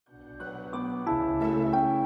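Intro music fading in from silence: soft sustained notes enter one after another, building in volume over the first second.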